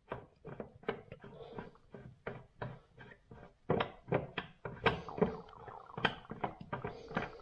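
Irregular small metal clicks and taps, about two or three a second and louder from about halfway through, as a small metal tool is worked in the screw of a chrome faucet handle to unscrew it.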